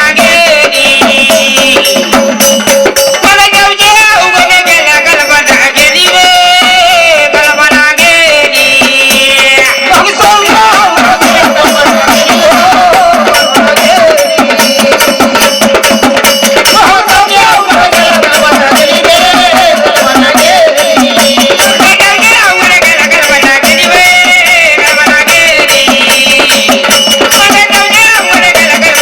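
Marathi devotional bhajan singing: a solo voice sings an abhang over a fast rhythm of hand cymbals and hand drum, with a steady note held underneath.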